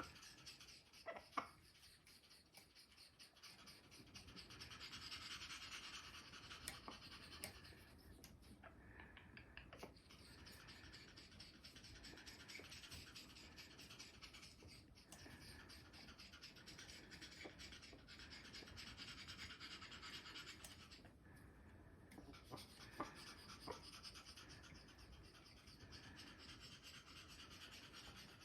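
Amazon parrot making a faint, raspy, breathy sound that swells and eases over stretches of a few seconds.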